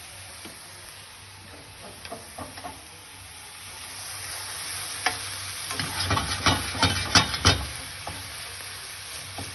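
Onion, garlic and sambal oelek sizzling in oil in a frying pan, the sizzle swelling about a third of the way in. Around the middle comes a run of sharp knocks and scrapes of a utensil against the pan as the mixture is stirred.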